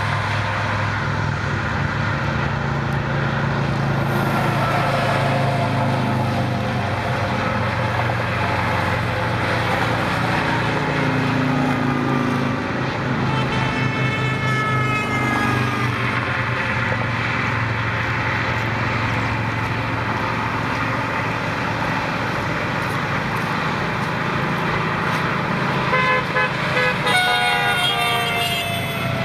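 Steady traffic noise from cars and motorcycles passing on the interstate. A vehicle horn sounds twice: once about halfway through with its pitch falling as it passes, and again, louder, near the end.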